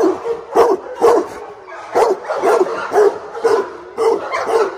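Large pit bull barking loudly and repeatedly, about two barks a second.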